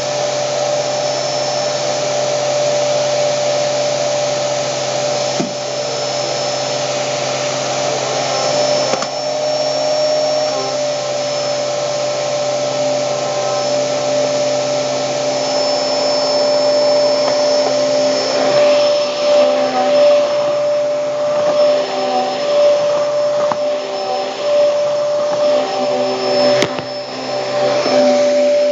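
Hoover Hurricane vacuum cleaner running with a steady motor whine. About halfway through, the sound starts to swell and dip over and over as the cleaner is pushed back and forth over carpet.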